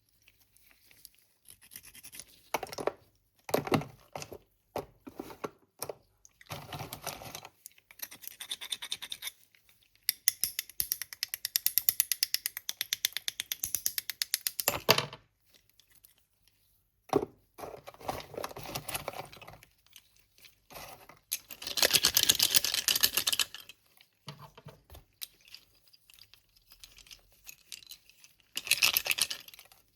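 Close-up handling of slate pencils and their packaging: irregular bursts of crinkling, scraping and crunching, with a fast run of scratchy ticks in the middle.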